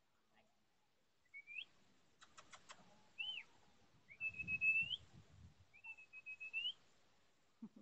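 Chocolate Labrador puppies whining: four thin, high whines, most rising at the end, the longest held nearly a second. There is a quick run of clicks about two seconds in and a low rustling of handling in the middle.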